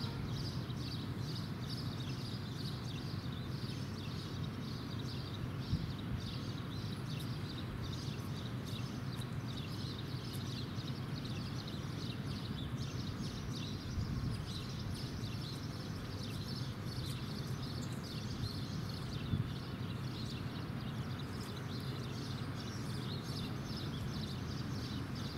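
Outdoor ambience: a steady low background rumble with small birds chirping throughout, and a few faint knocks.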